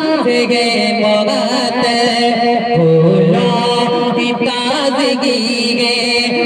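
A man singing a naat into a microphone over a public-address system, in long drawn-out melodic lines whose pitch wavers and turns in ornaments. A lower held note comes in about three seconds in.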